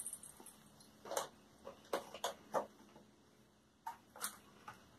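About seven short, soft clicks and rustles, irregularly spaced, with quiet gaps between them.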